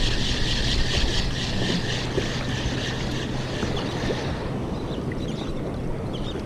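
Spinning reel being cranked to retrieve line: a steady whir with fast, even ticking from the turning rotor. It stops about four and a half seconds in.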